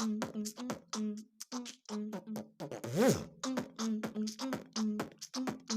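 Vocal imitation of DJ music by a beatboxer: quick mouth-percussion hits, about four a second, over a hummed bass note that steps slightly up and down. About three seconds in comes one rising-and-falling siren-like sweep, the loudest part.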